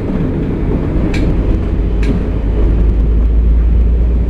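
Uerdinger VT 98 railbus running, heard from the front: a steady low diesel and running rumble, with sharp wheel clicks over the points about one and two seconds in. A deep drone grows stronger through the second half.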